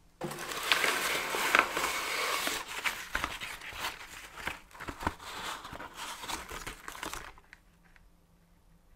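Brown paper bag crinkling and rustling as it is handled and opened, full of small sharp crackles, then stopping about seven seconds in.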